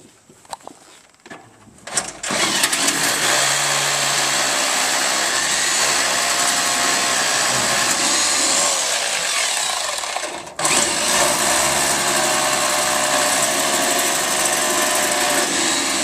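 Hammer drill boring anchor holes into a concrete foundation, running steadily in two long runs with a brief stop about two-thirds of the way through, after a few light clicks at the start.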